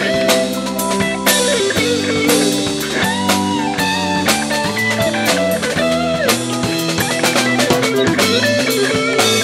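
Jazz-funk fusion band playing live: drum kit keeping a steady beat under sustained chords and bass, with a lead line that bends up and down in pitch.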